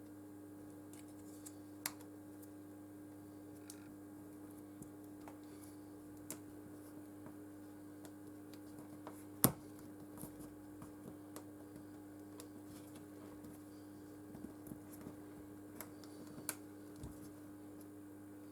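Sparse small clicks and taps of tools and phone parts being handled on a bench, with one sharper click about halfway, over a steady low hum.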